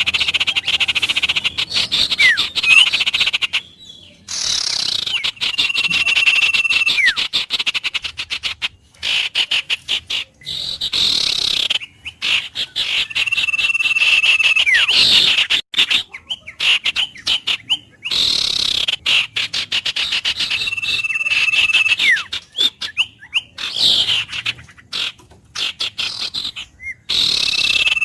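Wild birds calling over a dense chorus of rapid pulsing calls. A held whistled note that drops away in a falling glide comes back about every 8 seconds in a repeating loop.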